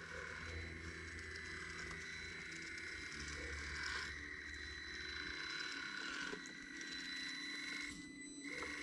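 Traxxas TRX-4M RC crawler's small electric motor and geartrain whining as it crawls over rocks. The pitch steps with throttle, and the whine briefly cuts out about eight seconds in before resuming.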